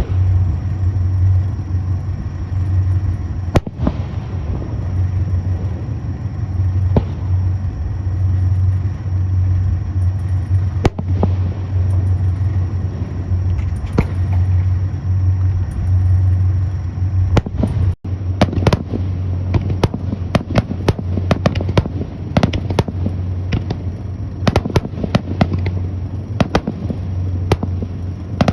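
Fireworks bursting: single sharp bangs every few seconds at first, then a rapid barrage of many cracks and pops from about halfway on, the finale of the display. A steady low hum runs underneath.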